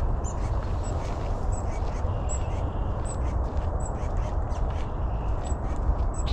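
Small wild birds calling around a marsh, with short, high chirps repeated every half second or so over a steady low rumble.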